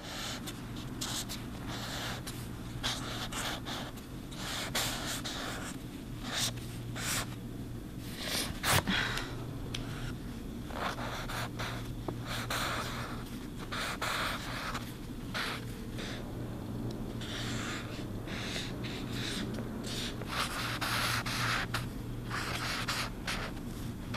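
Marker pen scratching across paper in many short strokes, over a steady low hum.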